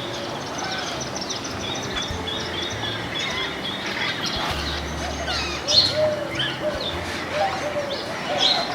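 Several birds chirping and calling together. In the first half one bird repeats a short high note about four times a second, and a few louder, sharper calls stand out near the middle and near the end.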